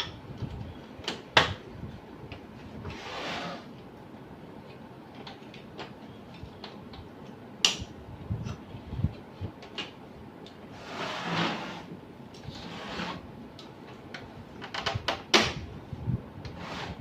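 Plastic printer casing and parts being handled and fitted together: sharp clicks and knocks, with a few short scraping slides.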